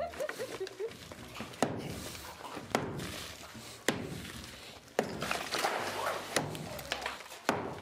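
Sharp knocks about once a second as a concrete-block wall is broken out, chunks of block cracking and falling. About six seconds in comes a splash as rubble drops into the water behind the wall.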